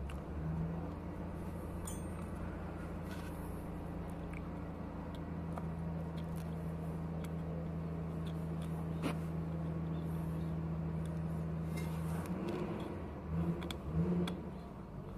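A steady low machine hum that cuts off about twelve seconds in, with scattered light metallic clicks and clinks, then a few short irregular bursts near the end.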